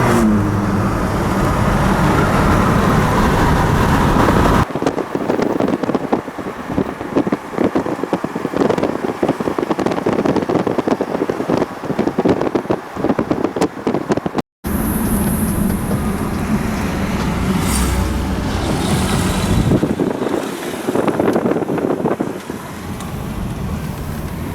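Car driving, with steady engine and road rumble, broken by abrupt cuts, and a stretch of crackling noise in the middle.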